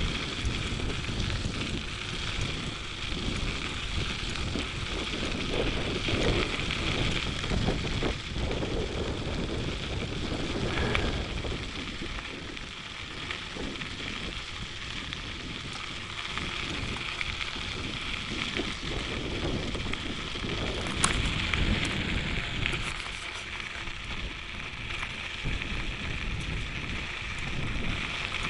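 Wind buffeting the microphone on a moving bicycle, with the crackle and rumble of its tyres rolling over the trail surface.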